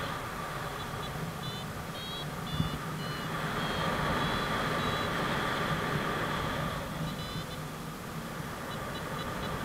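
Paragliding variometer beeping in short runs of tones that shift in pitch, the beeping that signals the glider climbing in lift, over a steady rush of wind on the camera microphone. The beeps come in a run early on, again briefly after about seven seconds, and quickly and evenly near the end.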